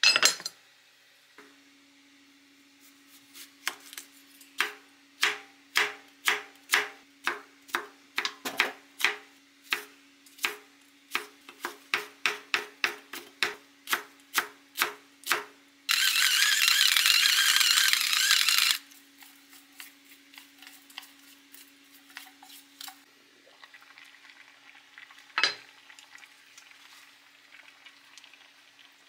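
A pot lid set down with a clank, then a kitchen knife chopping on a wooden cutting board, about two to three chops a second for some twelve seconds, shredding perilla leaves. Then a loud hiss for about three seconds, and a single click near the end.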